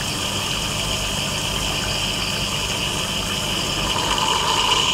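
Tap-water aspirator running steadily, a continuous rush of water pulling vacuum on a Büchner filtration. A second, lower hiss joins about four seconds in.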